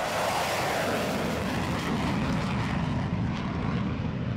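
Jet noise from an F-22 Raptor's twin Pratt & Whitney F119 turbofans as the jet climbs away after takeoff: a steady rushing rumble, its high hiss fading over the last second or so as the jet draws away.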